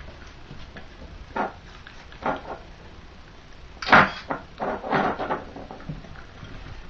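Bulldog puppy eating kibble from a bowl on a tile floor: a series of knocks and clatters of the bowl and food, the loudest about four seconds in, with a short run of them just after.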